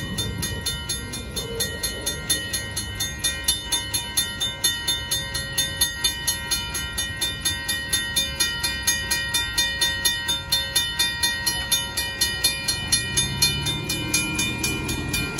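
Railroad grade-crossing bell ringing in a steady, rapid rhythm of about three strokes a second, over the low rumble of a freight train.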